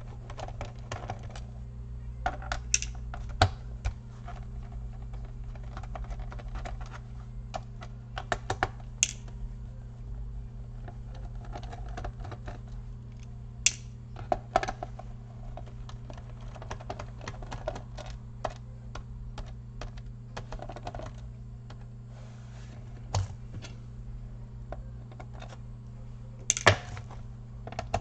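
Scattered light clicks and taps of a small screwdriver and tiny screws against the plastic bottom case of a laptop as its screws are taken out, over a steady low hum.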